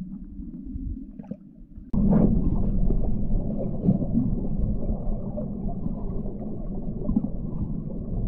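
Muffled rushing and gurgling of river water heard underwater, a steady low rumble that jumps suddenly louder about two seconds in.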